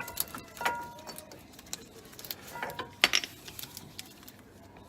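Metal clinks and taps with short ringing notes as old brake pads and their hardware are handled, the loudest about half a second in and a cluster around three seconds in.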